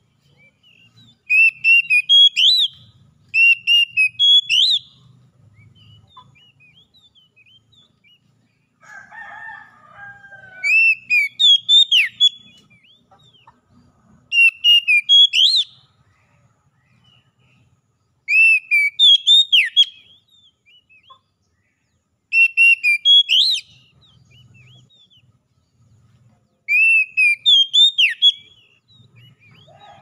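Male Oriental magpie-robin singing: about seven short phrases of clear, high whistled notes with quick slurs, each a second or two long, with pauses between.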